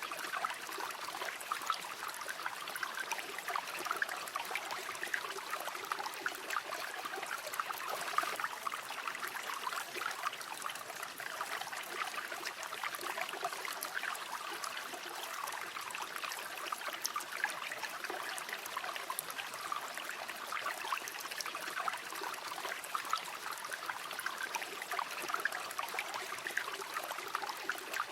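Flowing river water: a steady babbling of water running over stones, with many small splashes and gurgles.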